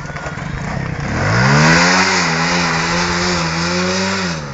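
Small 100cc underbone motorcycle engine revving up about a second in, held at high revs for a few seconds, then dropping off and fading near the end.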